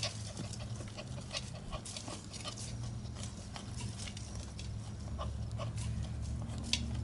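Schipperke puppy digging in garden dirt, its paws scratching and scraping the soil in a quick, irregular run of strokes, over a steady low hum.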